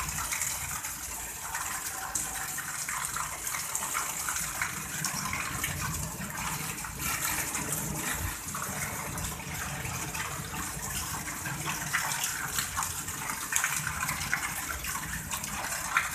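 Heavy rain falling steadily: a dense, even hiss of drops with many small splashes.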